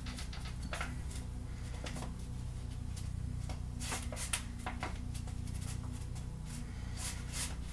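Light, scattered clicks and rustles of small objects being handled and moved about on a table, over a steady low hum.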